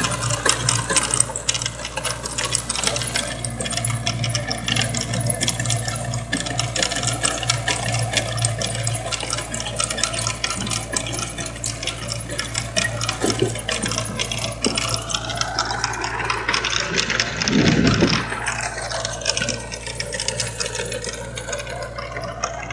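Kubota MX5000 tractor's diesel engine running steadily under load while it drives a rotary tiller, with a dense, fast rattle of tiller blades and soil. Between about 15 and 20 seconds in, a whine rises and then falls in pitch.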